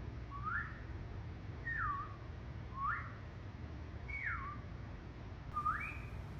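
A series of high whistle-like tones, about one a second, alternately sliding up and sliding down in pitch, over a low steady hum.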